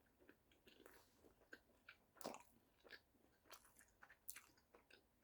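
Faint chewing of a mouthful of bacon cheeseburger: soft, irregular wet mouth clicks and small crunches of the bacon, the loudest a little past two seconds and again just past four.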